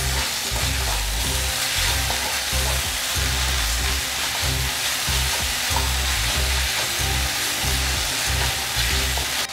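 Chopped spinach and masala frying in oil in a pan, a steady sizzle as they are stirred. A low repeating beat of background music runs underneath.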